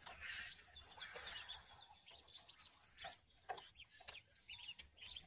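A group of ducklings softly peeping while they forage: many short, high cheeps, with a faint rustle of dry ground and vegetation in the first second or so.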